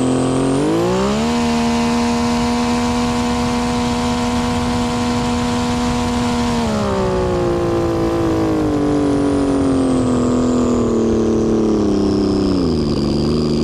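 Built turbocharged jet ski engine on a full-throttle top-speed run. The pitch climbs fast to a high, steady note about a second in and holds for several seconds, then slowly drops as the throttle comes off. A high whine over it falls along with the engine.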